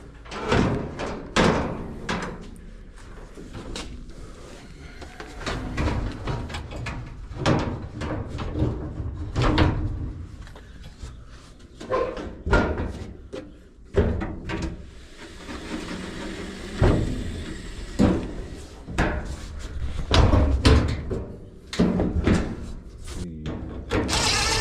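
Irregular knocks, clunks and clatter of dryer parts and panels being handled and fitted during reassembly, some sharp and some heavier thuds.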